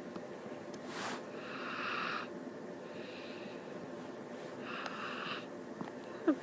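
A sleeping cartoon character snoring softly: three drawn-out breathy snores, the middle one fainter, with a short click before the first.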